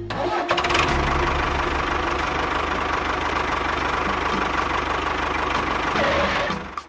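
An engine, of the kind sounding for a tractor, starting and running with a fast, even knocking beat. It fades out just before the end.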